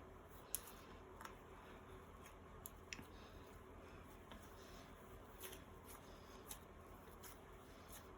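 Near silence with a few faint sticky clicks and squishes of hands pulling apart and kneading chocolate pudding slime.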